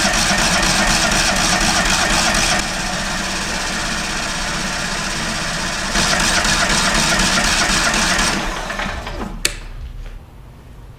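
The stump grinder's twin-cylinder engine is cranked over by its starter and turns steadily without firing, then winds down about eight seconds in, followed by a sharp click. It will not start: it is not getting spark.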